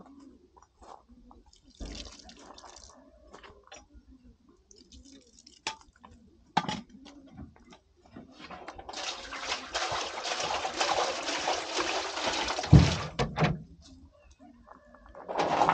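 Scattered small knocks and clicks, then water pouring steadily for about four seconds, ending in a heavy thud.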